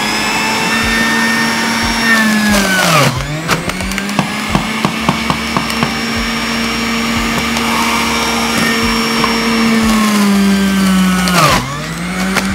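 Electric juicer motor running with a steady hum. Its pitch drags down sharply and recovers twice as hard beetroot pieces are pushed into the cutter, with a run of sharp clicks after the first slowdown.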